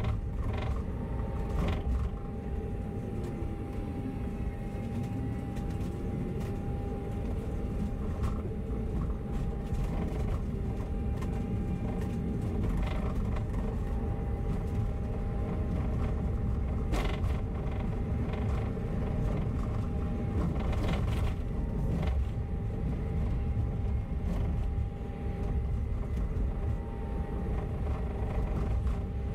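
Inside a moving bus: a steady engine and drivetrain drone with a whine that drops in pitch and climbs back a few seconds in, over sharp creaks and rattles from the bus body.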